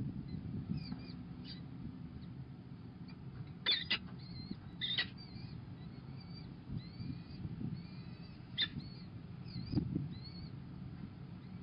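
Peregrine falcon chicks giving short, high-pitched cheeps as they beg while being fed, with a few sharper calls, over a steady low rumble. A soft low bump comes near the end.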